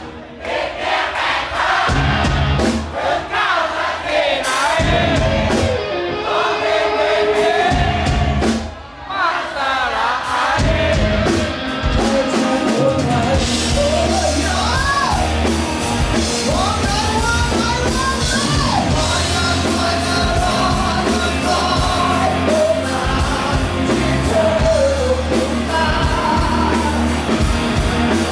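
Live rock band playing: a male lead singer over electric guitars and drums, with the music briefly dropping away about nine seconds in.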